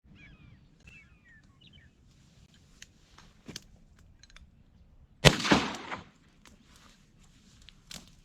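Outdoor marsh ambience: small birds chirping for the first couple of seconds, scattered light clicks, and one loud sudden noise about five seconds in that fades within a second.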